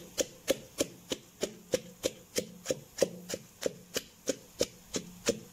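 Wooden pestle pounding whole fresh chillies in a clay mortar, a steady beat of sharp knocks at about three strikes a second.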